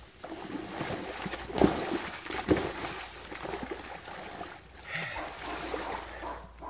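A person's body splashing and sloshing in a shallow muddy puddle while flopping and wriggling on the belly, with two heavier splashes about a second and a half and two and a half seconds in.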